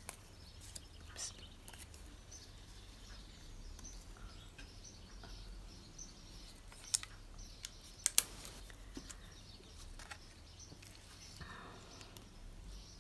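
Quiet handling of paper and card on a craft desk, faint rustling with a few sharp clicks or taps about seven and eight seconds in.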